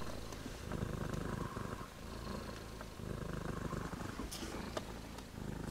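Tabby mother cat purring steadily while her newborn kittens nurse, the low purr rising and falling every second or so.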